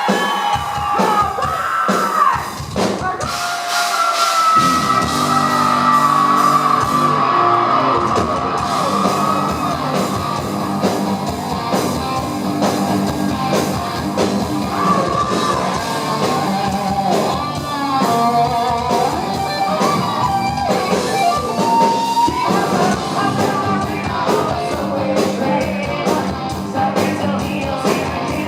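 Live heavy metal band playing loud, with distorted electric guitars, bass and drums and a man singing over them. Stop-start hits open it, then a steady driving riff about four seconds in, with the room's echo of a club hall.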